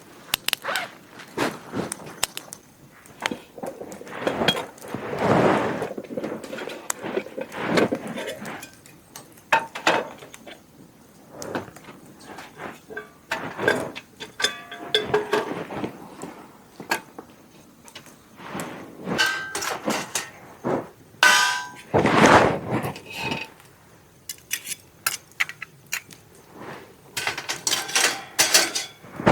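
Metal camp cookware and utensils being handled: a run of knocks, clinks and clangs, some ringing briefly.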